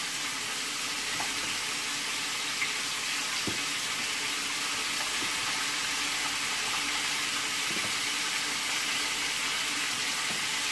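Floured buttermilk chicken deep-frying in a pot of oil: a steady sizzling hiss. A few faint taps of a fork against a plastic tub of flour.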